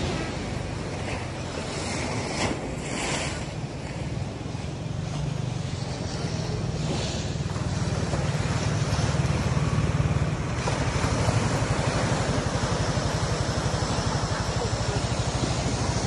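Steady low rumble of surf and wind buffeting the microphone. It grows louder about halfway through as a motorbike engine runs close by.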